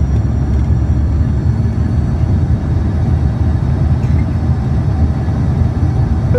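Cabin noise inside an Embraer 145 regional jet: a steady, loud low rumble of airflow and engines, with faint high whining tones from its rear-mounted turbofans.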